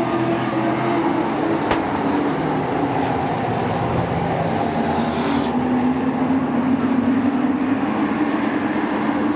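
Short-track sport trucks racing around the oval, their engines running steadily at speed, with a single sharp click a couple of seconds in.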